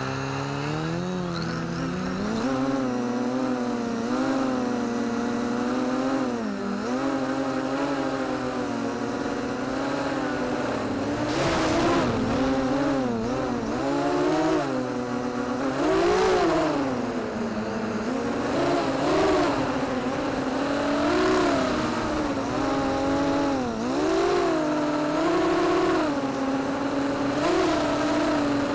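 Electric motors and propellers of a 280-size FPV racing quadcopter in flight, heard from its onboard camera. The whine rises and falls in pitch every second or two as the throttle is worked, with a few brief louder surges.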